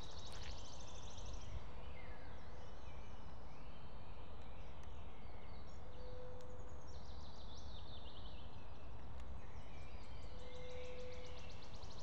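Several songbirds singing: high, rapid trills at the start, past the middle and at the end, with other calls between, over a steady low rushing noise. Two level low notes, each about a second long, about halfway through and near the end.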